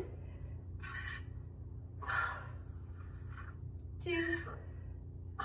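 A woman's short, breathy exhales, twice, as she lifts dumbbells through cleans between counted reps. She counts "two" near the end, over a low steady hum.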